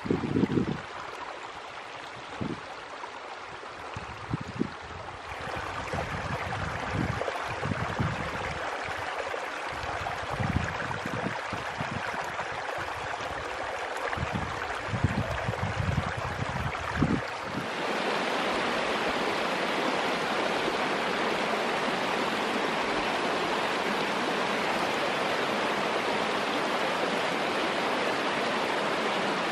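Small rocky mountain creek running over stones, a steady rush of water, with wind gusting on the microphone through the first half. About two-thirds of the way through the gusts stop and the water sound turns steadier and louder.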